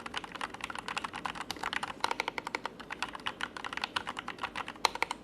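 Fantech MaxFit67 65% mechanical keyboard being typed on: a fast, continuous run of key clicks and clacks, several keystrokes a second.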